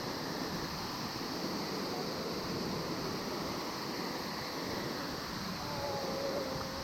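Steady rushing of a mountain waterfall close by, an even roar of falling water.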